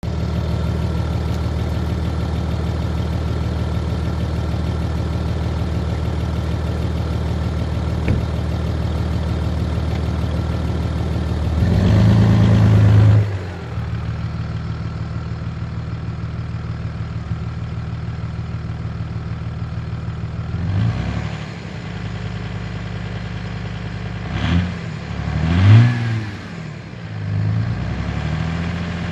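Audi A6 C5's 2.5 TDI V6 diesel engine idling steadily at the exhaust, revved once for about a second and a half some twelve seconds in, then blipped briefly several times in the last third, with one sharp blip the loudest.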